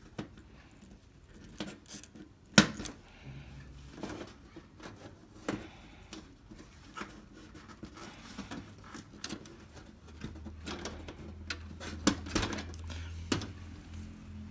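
Scattered clicks and knocks of plastic panel supports being squeezed with flat pliers and pulled out of an LED TV's frame, with a sharp snap about two and a half seconds in and a run of clicks near the end.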